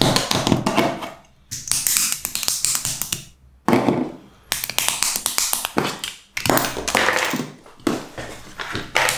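Plastic Mega Construx bricks and plates being pressed and snapped together by hand, in several bursts of quick clicks and taps with short pauses between them.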